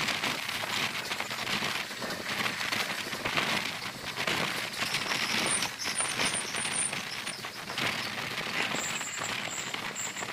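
Wind buffeting a microphone held out of a moving passenger train's window, mixed with the train's running noise: a loud, steady, crackling rush.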